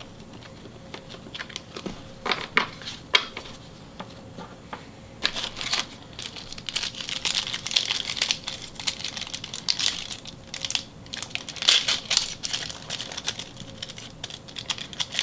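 A few light taps of cards being handled, then from about five seconds in, dense crinkling and tearing of a trading card pack's wrapper being opened.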